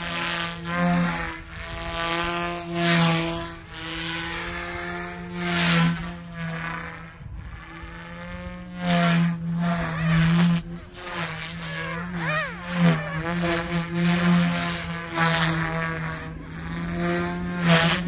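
Goosky S2 electric RC helicopter with a 3D-printed frame flying fast aerobatics: a steady high buzzing whine from its spinning rotor and motors. The blade noise swells and fades again and again as it flips and passes, and the pitch briefly wavers about two-thirds of the way through.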